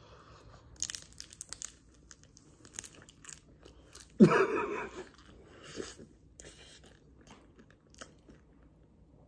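Crunching bites and close-up chewing of a lobster tail pastry: the flaky, crisp shell crackles while the cream filling makes wet mouth sounds. It is louder for a moment about four seconds in.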